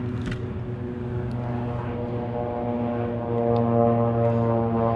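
Boat engine droning steadily at one pitch, growing louder about three seconds in.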